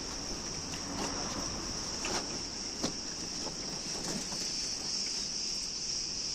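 Steady, high-pitched shrill of a summer insect chorus, with a few faint soft taps.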